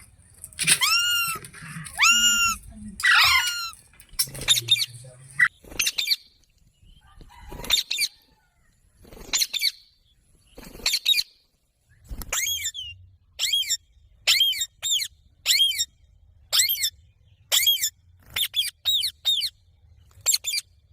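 Parrot calling repeatedly: a few drawn-out, arched screeches in the first few seconds, scattered calls with short silences in between, then a run of short, sharp, downward-sweeping squawks about once a second in the second half.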